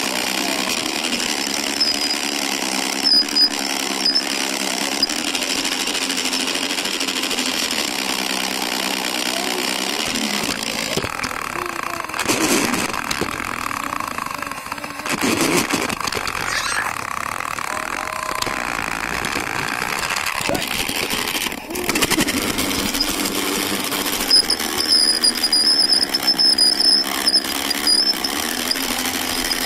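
Motorised Lego toy train's electric motor and gears rattling steadily as it runs along plastic track, with a few short knocks.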